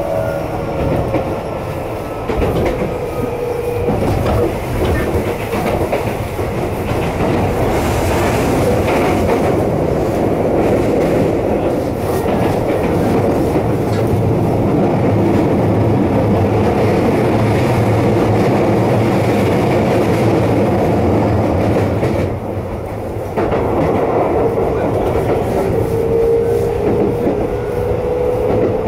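Keisei electric train running at speed, heard from inside the car: a steady rumble of wheels on the rails. The traction-motor whine drifts at the start and rises again near the end, and the rumble drops briefly for a moment in between.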